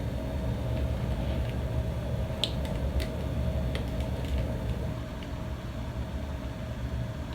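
Steady low room hum with a few faint, short clicks about two and a half to four and a half seconds in.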